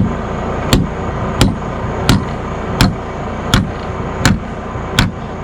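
Hand hammer striking an anchor bolt into a hole drilled in a concrete slab: eight sharp, evenly paced metal blows, about one every 0.7 seconds.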